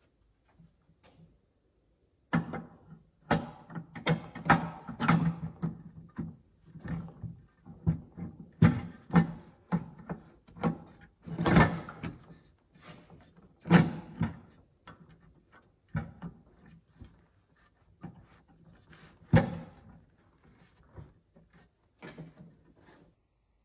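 Irregular metal clanks and knocks of car suspension parts and hand tools being handled and fitted, several a second, starting about two seconds in and thinning out near the end, with a few louder bangs.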